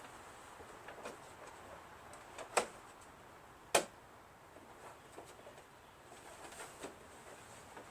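Quiet room tone broken by a few light, sharp clicks and taps. The sharpest comes about four seconds in.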